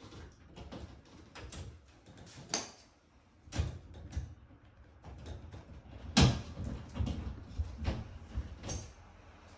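Hand work at a metal wall-mounting plate for PER pipes: irregular knocks, clicks and handling noise as parts are fitted and adjusted, with one sharper knock a little past six seconds in.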